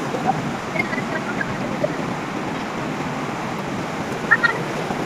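Mountain river rushing steadily over rocky rapids. A short high sound rises briefly above the rush a little after four seconds in.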